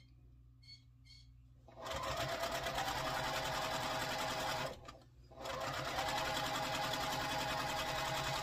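Electric sewing machine stitching a seam through pieced quilt-block fabric, in two runs of about three seconds each with a short stop between them, starting about two seconds in after a few faint clicks.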